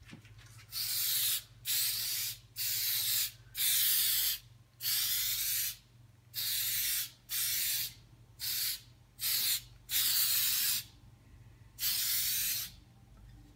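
Aerosol can of spray shellac hissing in about a dozen short bursts with brief pauses between them, as a finish coat is sprayed onto a wood frame.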